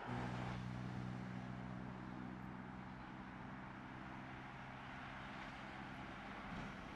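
Faint, steady low hum of an approaching passenger train, several even tones held over a steady hiss, easing off near the end.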